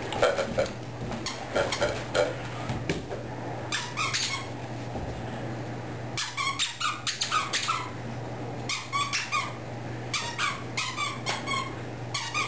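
Squeaky monkey toy being chewed by a greyhound, giving quick runs of short high squeaks in several bouts with brief pauses between.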